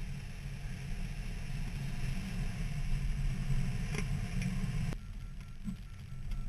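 Wind rushing over the glider-mounted camera's microphone in flight, a steady low rumbling buffet. About five seconds in the sound drops abruptly and a faint repeating high beep starts.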